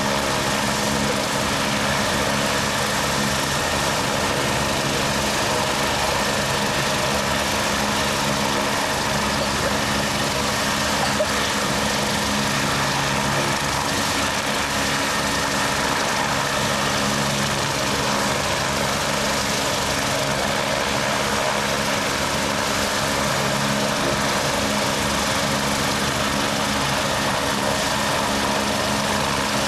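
Rescue helicopter running on the ground at idle: a steady turbine whine and rumble with the rotor turning, unchanging throughout.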